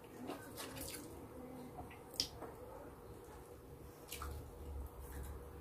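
Faint wet chewing and mouth clicks from eating roasted chicken, with a few scattered sharp, wet smacks. The loudest smack comes about two seconds in.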